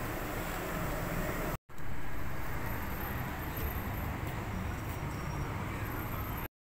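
Steady outdoor background noise, an even hiss and rumble with no clear events, broken by a brief dropout about one and a half seconds in.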